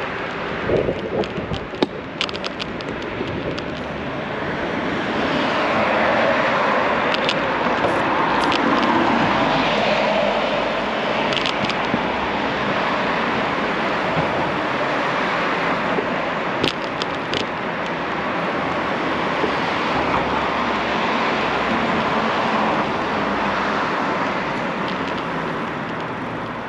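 Steady city street noise with passing traffic swelling and easing, and a few short sharp clicks.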